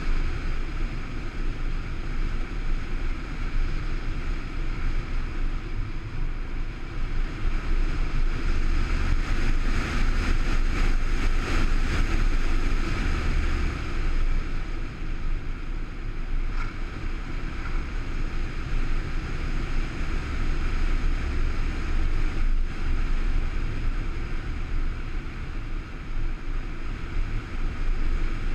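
Onboard sound of an electric RC plane in flight: wind rushing over the onboard microphone together with the steady whine of its electric motor and propeller, which brightens for a few seconds near the middle.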